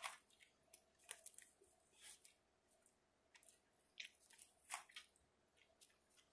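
Shoes treading and grinding in mashed fruit on a hard floor: irregular soft wet squelches and small crackles, with a few sharper ones about a second in, about two seconds in, and twice between four and five seconds.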